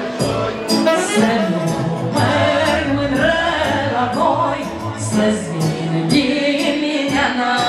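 Live band music: a woman singing into a microphone over saxophone and a Roland digital accordion, all amplified.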